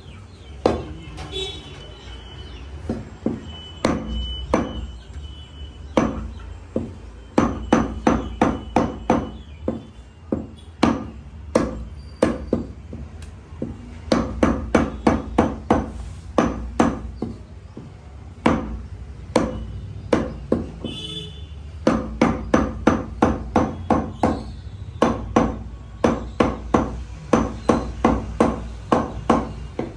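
Butcher's cleaver chopping a leg of mutton: sharp knocks about four a second, in runs of several strokes separated by short pauses.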